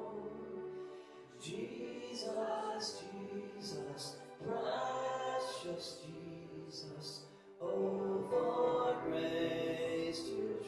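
A hymn sung by voices with piano accompaniment, in phrases of about three seconds with short breaks between them.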